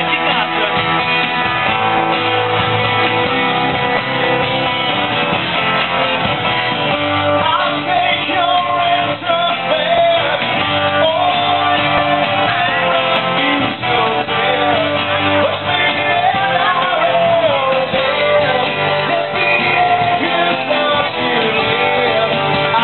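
A small band playing live: strummed acoustic guitar with electric guitar, and a voice singing a wavering melody over it from about seven seconds in.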